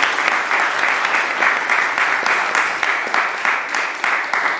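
Audience applauding: a roomful of people clapping, easing off slightly toward the end.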